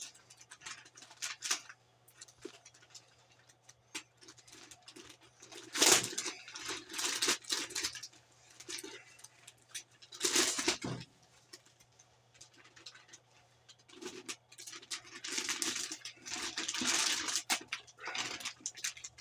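Plastic packaging wrap crinkling and rustling in irregular bursts as it is pulled and peeled off a new oscilloscope, the loudest crackles about six and ten seconds in and a busy stretch near the end. A faint steady low hum runs underneath.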